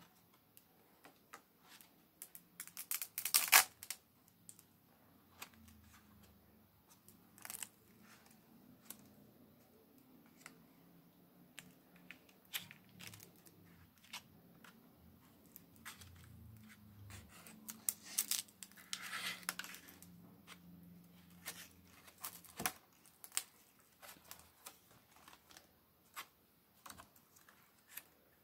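Painted, collage-laden pages of a Dylusions A4 art journal being handled and turned: paper rustling and crinkling, with a louder flurry about three seconds in and another around eighteen to twenty seconds in, and small taps and clicks between.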